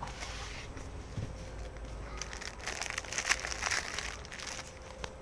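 Close-miked eating of instant noodles: wet chewing sounds, busiest from about two to four and a half seconds in.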